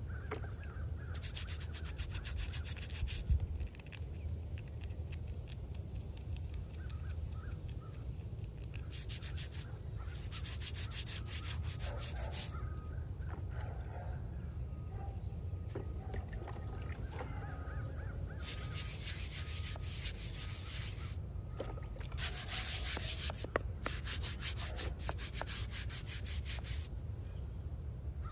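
Bristle brush scrubbing a small headstone, in several spells of quick back-and-forth strokes a few seconds long.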